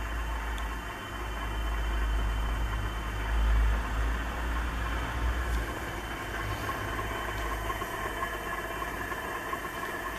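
Brushless geared 36V 250W front hub motor spinning a 20-inch wheel with no load at its top speed: a steady whirring hum with a thin steady whine, over a low rumble that is loudest in the first half.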